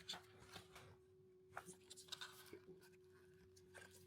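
Near silence: faint scattered taps and rustles of cardboard packaging being handled, over a steady faint hum.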